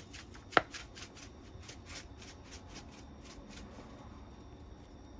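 Black pepper being put onto raw beef liver: a quick, even run of light crisp ticks, about five a second, stopping near four seconds in, with one sharper click about half a second in.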